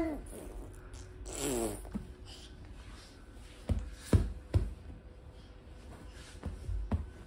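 A baby's short babbling sound about a second and a half in, then a few dull thumps as the baby's hands slap the foam play mat while crawling over it.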